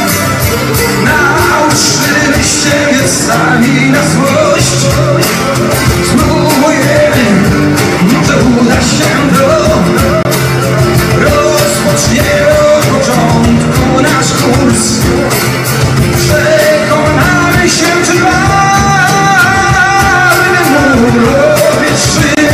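Live acoustic rock band: a male vocalist singing into a microphone over strummed acoustic guitars and a steady hand-percussion beat.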